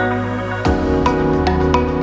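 Background music: a gentle new-age track of struck, mallet-like notes over a sustained bass, with the bass changing about two thirds of a second in.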